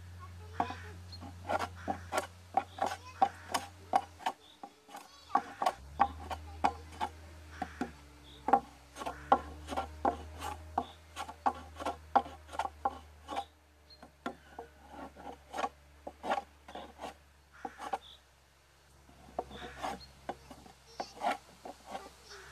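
Hand saw cutting a wooden board: quick, uneven rasping strokes, a few a second, with short pauses about four seconds in and again around three-quarters of the way through.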